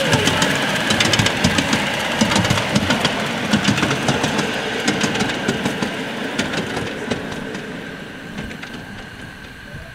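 Model train running on a layout: a steady whine with many small clicks of wheels on track, fading away over the last few seconds.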